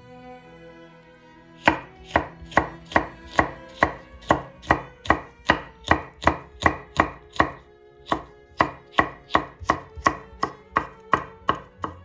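Chef's knife slicing a red chili pepper into thin rings on a wooden cutting board: a steady run of crisp cuts, about three a second, each ending in a knock of the blade on the board. The cutting starts about two seconds in and pauses briefly past the middle.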